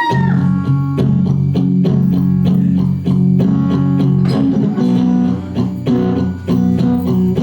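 A guitar playing the opening chords of a song, notes plucked in an even, repeating pattern with no singing yet.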